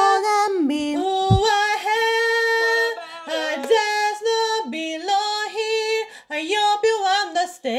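A cappella singing: a female voice over layered backing voices, holding long notes with short bends in pitch.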